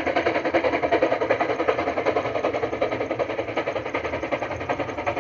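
P36 steam locomotive working, its exhaust beating in a rapid, even rhythm of about six beats a second that slowly fades.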